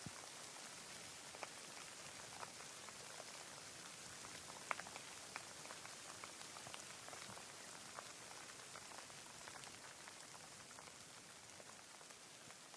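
Steady light rain: a fine hiss with scattered individual drops ticking, one sharper drop about five seconds in.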